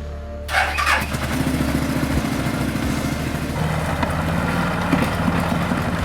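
Can-Am Outlander ATV engine running steadily, with a short burst of noise about half a second in.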